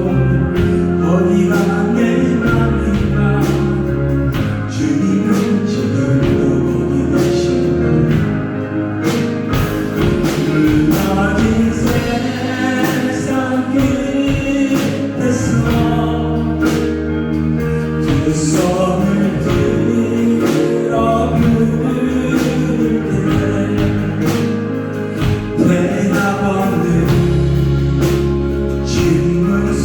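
Church worship band playing with singers, a slow gospel praise song with a steady beat.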